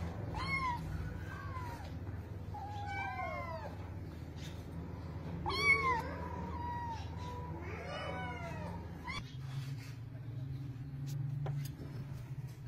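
Domestic cat meowing repeatedly, about five calls in the first nine seconds. Each call rises and falls in pitch, and the loudest comes around the middle.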